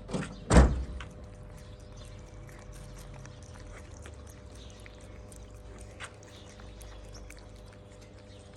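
Two loud thumps right at the start, then the faint small clicks of a kitten eating its food.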